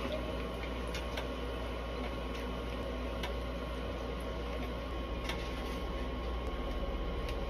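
Steady low hum and hiss in a kitchen, with a few light, sharp clicks of a metal fork tapping a plate and a skillet while ground beef is scooped into taco shells.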